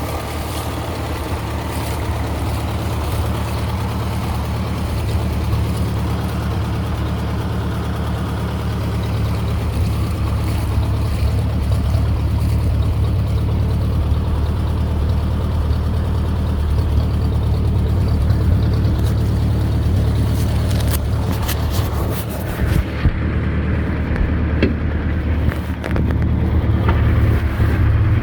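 Ford Model A's four-cylinder engine running steadily with an even, low tone. Scattered clicks and knocks come in over the last several seconds.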